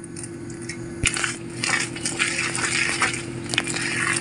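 Wire whisk working thick ragi-flour batter in a glass bowl: repeated wet, scratchy stirring strokes from about a second in, with a few sharp clinks of the whisk against the glass, over a steady low hum.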